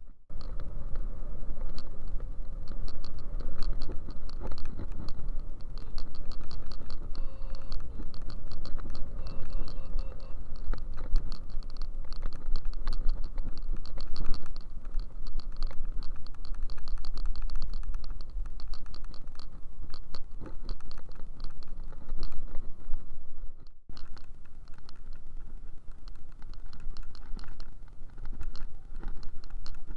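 Riding noise on a moving scooter: wind buffeting the microphone with a heavy low rumble, over a constant fast rattle of small clicks from the vibrating bike. The sound cuts out for a moment about 24 seconds in.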